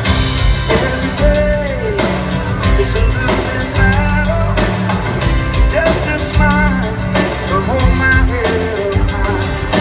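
Live pop-rock band playing: a male lead vocal sung over strummed acoustic guitar and a drum kit.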